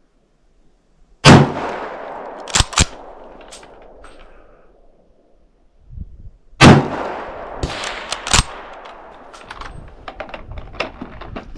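Two 8mm Mauser rifle shots from a Yugoslavian M95M straight-pull Mannlicher, about five seconds apart, each with a long echo tail. A second or so after each shot come two sharp metallic clacks as the straight-pull bolt is worked back and forward, and a few small clicks follow near the end.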